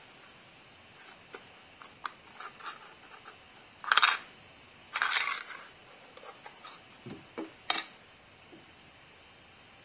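A digital kitchen scale being handled and turned over: scattered small clicks and taps of its casing, two louder clattering scrapes about four and five seconds in, then a few knocks as it is put down.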